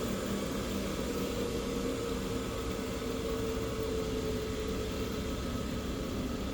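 Bench grinder motor running steadily: a constant hum with an even hiss over it, no pauses or changes.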